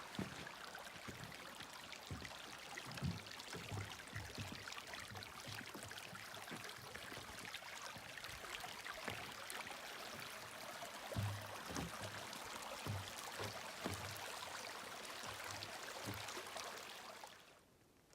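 Steady hiss with regular low footfalls of someone walking a dirt trail. It cuts off abruptly near the end.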